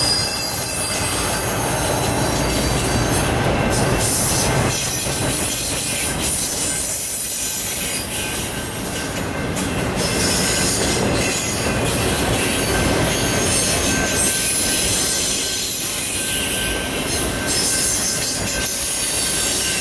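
Autorack freight cars rolling past: a steady rumble of steel wheels on rail, with a thin high wheel squeal over it.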